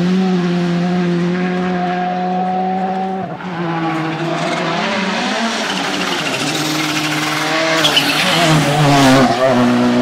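Rally cars' turbocharged engines at high revs, held steady at first, then a brief lift about three seconds in, followed by rising and falling revs through gear changes, with some tyre noise on the loose surface.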